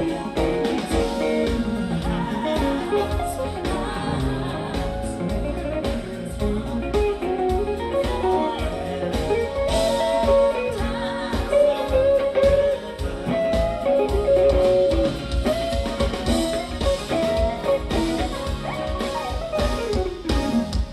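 Live band playing a jazz-R&B groove: electric guitar runs and held notes over drums and bass, with singing.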